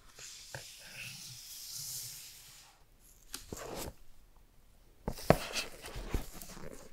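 Gloved hands handling cardboard iPhone boxes: a long sliding rub across the cardboard, a brief scrape, then a cluster of taps and knocks as the boxes are brought together, the sharpest about five seconds in.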